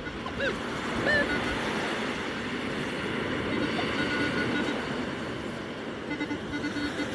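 Minelab Equinox 800 metal detector giving short target beeps as its coil is swept over a freshly dug hole in the sand: a higher tone around four seconds in, a low tone near the end; the target proves to be aluminium. Under it, a steady wash of surf and wind.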